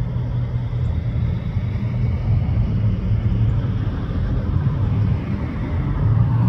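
Road traffic on the street: a steady rumble of passing cars, growing louder near the end as a car approaches.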